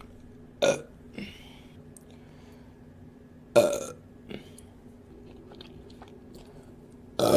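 A woman burping: three short burps, at about a second in, a third of the way through and near the end, the last the loudest, with a few fainter mouth sounds between.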